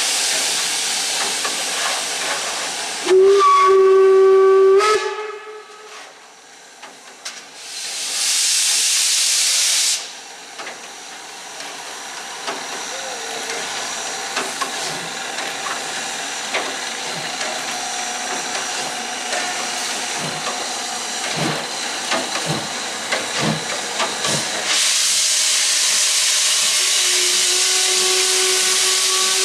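Steam locomotive blowing off loud hissing steam and sounding its whistle, one blast a few seconds in and another starting near the end. In between come a few slow exhaust beats about a second apart as it pulls away.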